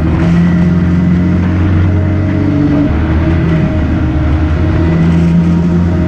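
Can-Am Maverick X3 RS side-by-side's turbocharged three-cylinder engine running at a steady cruise, heard from a camera mounted on the vehicle, with drivetrain whine and wind and sand noise over it. The pitch dips briefly about halfway through, then steadies again.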